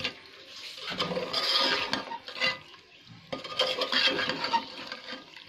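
Steel ladle stirring chicken curry in a metal pot, clinking and scraping against the pot in two bouts with a short pause between.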